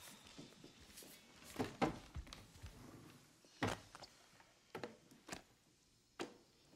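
A handful of faint, short knocks and thuds, spaced irregularly over a few seconds, over a quiet background.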